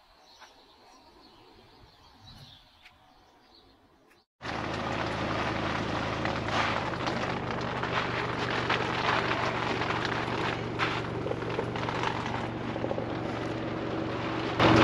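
Faint background sound for about four seconds, then, starting abruptly, a portable camp-shower water heater running: a steady hum with a hiss over it.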